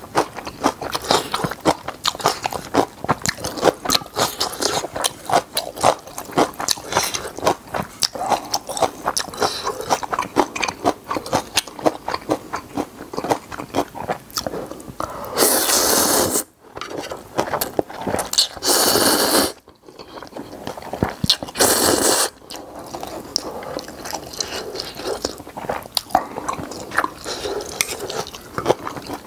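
Close-up mouth sounds of chewing and crunching napa cabbage kimchi and ramen, with three loud slurps of noodles a little past halfway, then more chewing.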